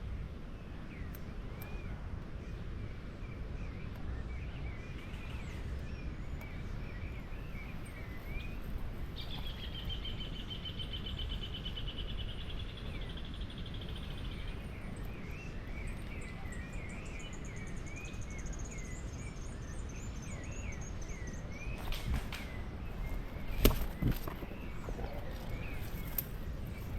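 Wild birds chirping throughout over a low rumble of wind and handling noise, with one long even trill in the middle and a higher trill that falls in pitch after it. A few sharp clicks come close together near the end.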